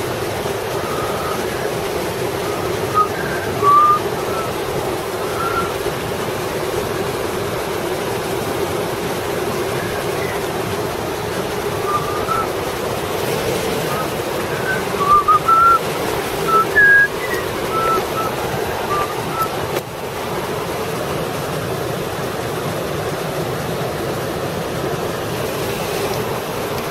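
River water rushing steadily, with short high chirps coming in two clusters, a few seconds in and again around the middle.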